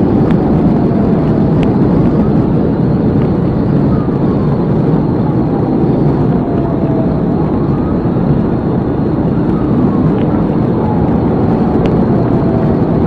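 Steady road, tyre and engine noise inside a police cruiser at highway speed, with a siren faintly wailing, slowly rising and falling in pitch.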